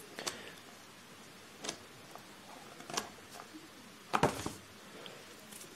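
Pages of a paperback book being turned by hand: a few faint paper flicks, then one louder page flip about four seconds in.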